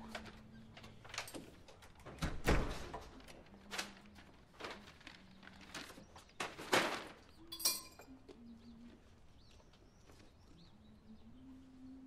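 A front door is swung shut with a low thunk about two and a half seconds in, among footsteps and the rustle of clothing and a bag. A sharp click comes shortly after. In the second half, faint bird chirps sound from outside.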